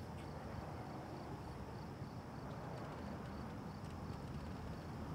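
Faint outdoor ambience: a steady low rumble with a thin, evenly pulsing high chirp like insects.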